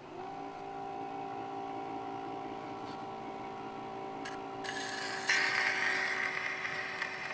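A held chord played from a 10-inch shellac record on a child's drum phonograph, its pitch sliding up briefly at the very start. Surface hiss grows louder about five seconds in.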